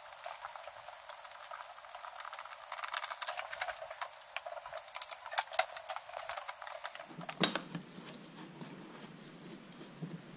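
Irregular light clicks, taps and rustling of handwork on the car, with one sharper knock about seven seconds in.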